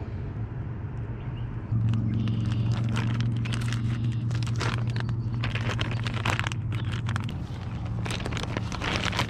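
Plastic zip-top bag crinkling and rustling as a fish is handled and slipped into it, in a run of quick crackles. Underneath, a steady low motor hum comes in suddenly about two seconds in and fades about seven seconds in.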